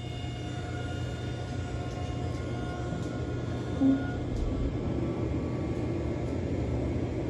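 Vehicle engine running with a steady low rumble, and a short, louder tone a little under four seconds in.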